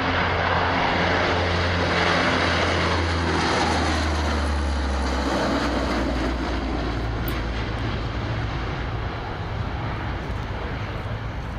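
Belgian Air Force Lockheed C-130H Hercules passing low, its four Allison T56 turboprops and propellers giving a loud, steady drone. The drone drops in pitch about four to five seconds in as the aircraft goes by, then slowly fades as it climbs away.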